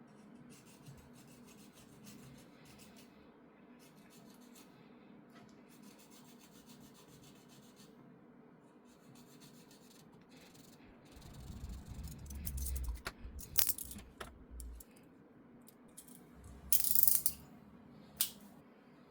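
Small parts being handled and worked by hand: light rattling and scattered clicks. A rumble with a few sharp clicks comes about two-thirds of the way in, then a short loud scrape or hiss and a last click near the end.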